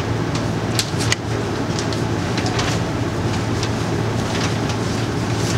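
Steady low mechanical hum of an indoor shooting range's ventilation fans, with a few faint ticks; no shot is fired.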